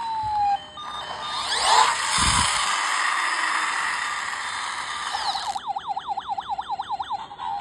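Electronic siren from a battery-powered toy police car. A falling wail ends in the first second and a hissing stretch follows. From about two-thirds of the way in it switches to a fast warbling yelp, rising and falling about four times a second.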